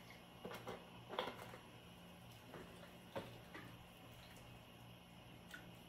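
Faint scattered clicks and taps of a cooking spoon knocking against a metal pot while soup is stirred, about half a dozen, over a low steady hum.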